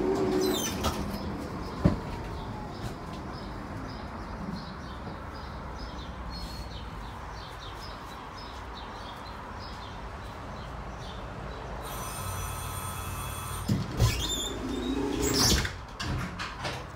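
Tatra tram running, with a steady rumble and scattered clicks; near the end it grows louder with a whine that falls in pitch.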